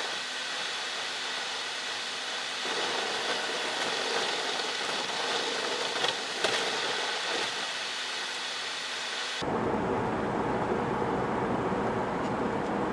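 Steady rushing road noise of a car being driven, tyres and wind, with a couple of faint clicks about six seconds in. Near the end it switches abruptly to a lower, fuller rumble.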